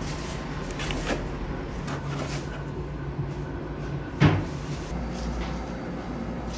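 Cookies being packed into a paper takeaway box on a stainless steel counter: faint clicks of card around a second in, then a single sharp knock about four seconds in, over a steady low hum.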